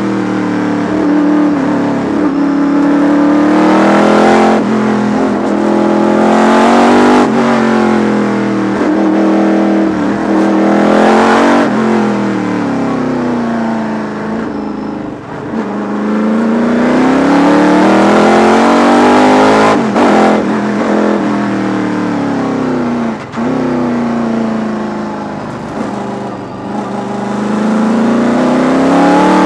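V8 sports sedan race engine heard from inside the cockpit at racing speed. The revs climb and then drop sharply again and again as it shifts up through the gears, and the engine eases off, falling in pitch, where the car slows for corners.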